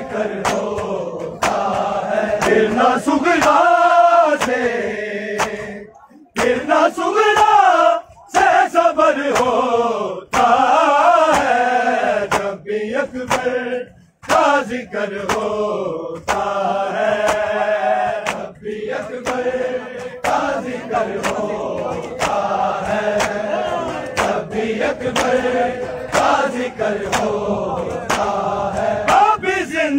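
Large group of men chanting a noha, a Shia lament, in unison, with regular sharp slaps of matam (hand-on-chest beating) a little over once a second.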